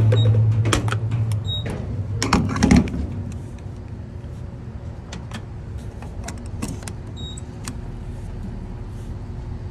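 Gas pump nozzle handled and fitted into a vehicle's filler neck, with clicks and a loud clunk about three seconds in, then a steady low hum as the pump runs and fuel flows into the tank.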